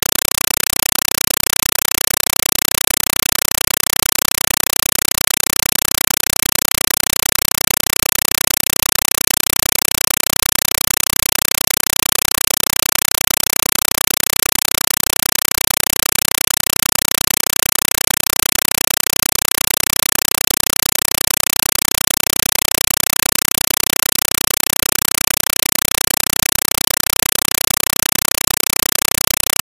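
Steady, even hiss with no other sound in it: noise on the otherwise silent soundtrack of an old 8mm film transfer.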